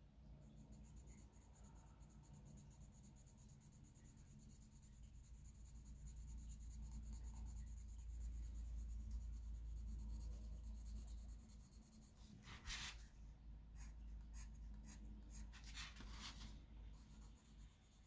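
Faint scratching of a Bruynzeel colour pencil's red lead on paper as it shades a swatch, with a low rumble swelling in the middle and two bursts of quicker hatching strokes in the last third.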